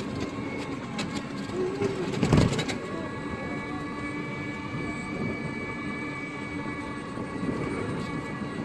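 Engine of a small open motor vehicle running steadily with a constant hum while it drives along, with rushing air and rattle; a brief loud burst of noise about two and a half seconds in.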